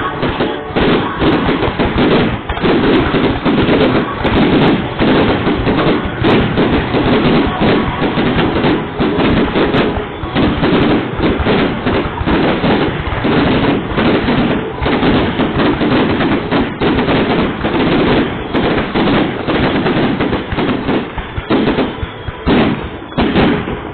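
Fireworks display going off in a rapid, unbroken barrage of bangs, many each second.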